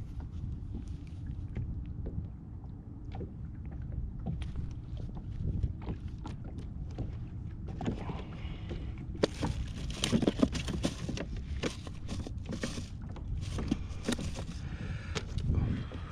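Small fishing kayak on the water: wind rumbling on the microphone, with many small knocks and clicks against the hull and gear. The knocking and handling noise grows louder for a few seconds past the middle and again toward the end.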